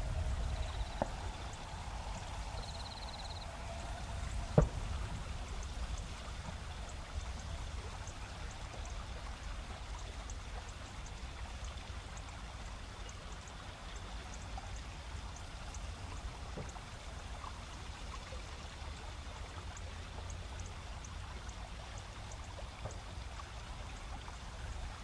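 Steady rushing of a river over shallows, with autumn insects chirping faintly and regularly. A low rumble from the distant old electric train fades over the first few seconds, and there is a single sharp knock about four and a half seconds in.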